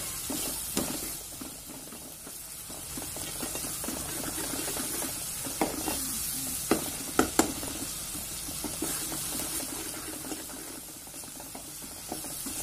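Onion-tomato masala with chilli powder sizzling in oil in a metal kadai, being fried and stirred until the chilli powder loses its raw smell. A metal ladle scrapes and knocks against the pan a few times, mostly in the middle.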